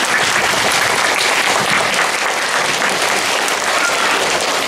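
A large audience of schoolchildren applauding, dense steady clapping.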